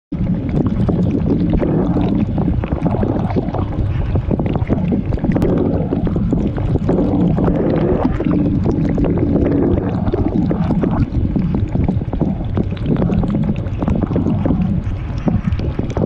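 Dishwasher running, heard from inside the machine: a steady low pump hum under constant spraying and splashing of water, with many small pattering hits.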